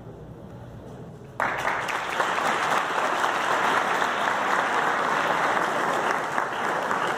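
Audience applauding. The clapping breaks out suddenly about a second and a half in and goes on steadily.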